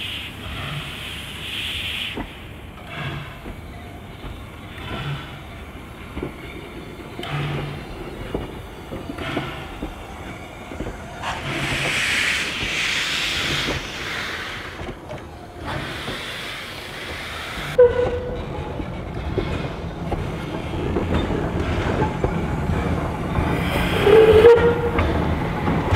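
Narrow-gauge steam train running, with a recurring exhaust beat and hissing swells that grow louder in the second half. Two short high notes stand out, once about two-thirds through and again near the end.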